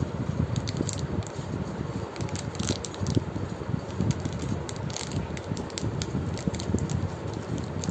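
Crinkling and crackling of the plastic wrappers of individually wrapped chocolate cookies as a hand handles and opens them, in many short, irregular crackles over a steady low background rumble.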